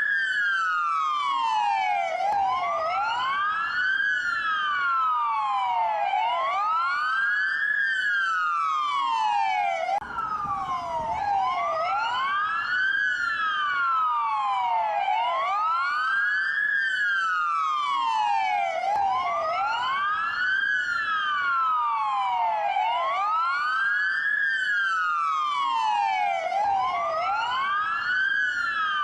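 Dual police wail siren: two siren tones sounding together, slightly out of step, each rising and falling in pitch about once every four seconds.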